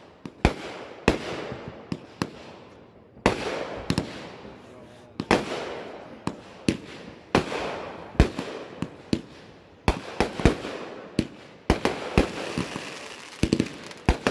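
Aerial fireworks going off in a rapid, irregular string of sharp bangs, about one to two a second, each one trailing off.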